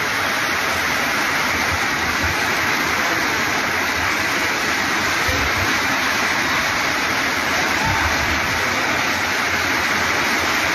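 Torrential rain falling, a steady, dense hiss with no letup.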